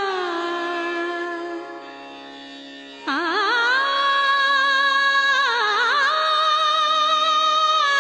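Indian devotional song: a woman's voice sings an ornamented melody over a steady drone. A held note slides down and fades, and about three seconds in a new phrase begins, with wavering bends and long held notes.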